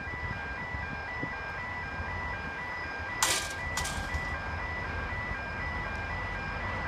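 An electronic warning bell rings in a steady, evenly repeating pattern of short alternating tones, over the low rumble of an approaching diesel freight locomotive. Two short sharp noises come about three seconds in.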